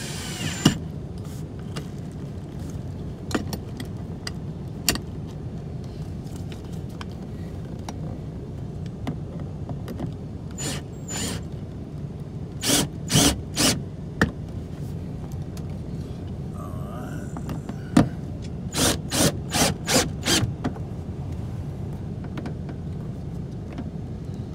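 Power drill tightening a TV mount's toggle bolts into panelling in short bursts, three around the middle and five more near the end, with scattered clicks of handling over a steady low hum.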